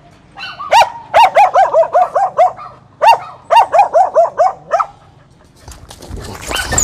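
A dog barking and yelping in fast runs of short, high calls, each falling in pitch, about five a second, in two bouts. Near the end comes a rustling scuffle.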